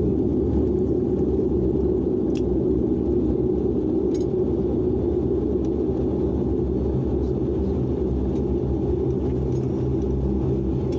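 Steady low rumble of an airliner rolling along the runway, heard inside the cabin: engine drone and wheel noise, with a couple of faint clicks in the first few seconds.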